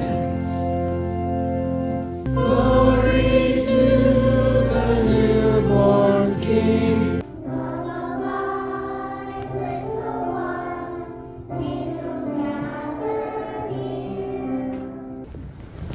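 A children's choir singing a song with sustained low accompaniment. It swells louder about two seconds in, drops back to a softer level about seven seconds in, and stops shortly before the end.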